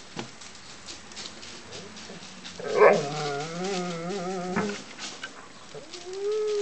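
Doberman puppy giving a drawn-out, wavering whine about three seconds in, lasting around two seconds.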